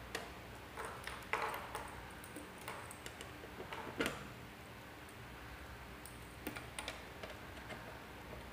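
Faint, irregular clicks and taps of patch-cord plugs being pushed into the sockets of an op-amp trainer kit's panel and the cords being handled, the sharpest click about four seconds in.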